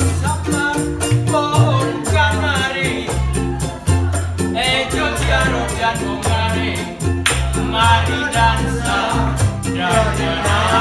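Live acoustic band: two ukuleles strumming, a plucked upright double bass and a shaker ticking in a steady rhythm, with a singer's voice over them.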